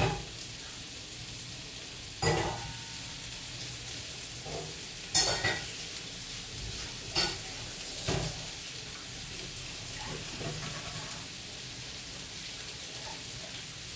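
Meat, onion and zucchini frying in oil in a pan: a steady sizzle broken by about six sharp pops in the first eight seconds or so.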